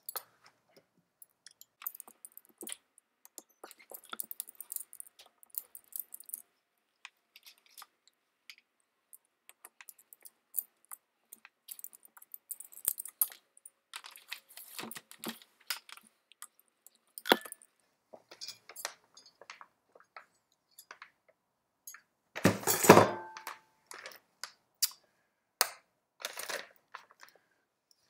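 Small metallic clicks, ticks and rattles of hand tools and loose metal parts as the chainring is taken off a Bafang BBS02 mid-drive motor, with a louder clatter about 23 seconds in.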